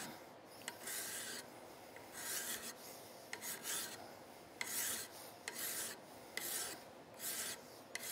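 Flat hand file scraping across a revolver's metal grip frame, stroke by stroke at about one a second. The grip frame is being filed down flush with the revolver frame while it is fitted.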